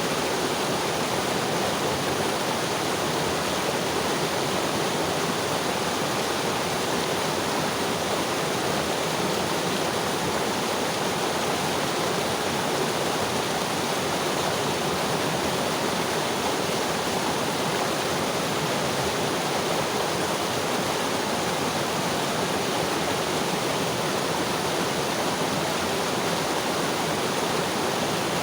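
Mountain river rushing steadily over rocks, a dense, even sound of flowing water with no pauses.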